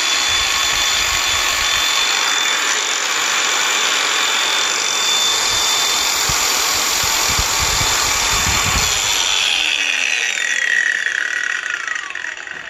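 Makita 18V cordless angle grinder with a grinding disc fitted, running free at full speed with a steady high whine. About ten seconds in it is let off and winds down, the whine falling in pitch.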